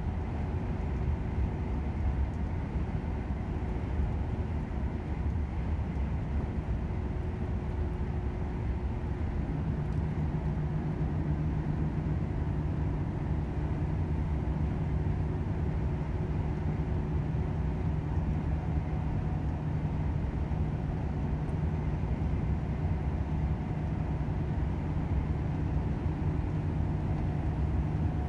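Volvo FH 500 truck running at speed, its 13-litre straight-six diesel and tyres giving a steady low drone, with a low hum joining about a third of the way in.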